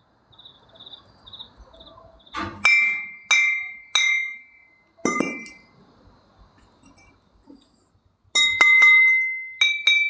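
Glass bottles clinking as they are knocked and set down on a concrete floor: about a dozen sharp clinks in four clusters, each with a short bright ring.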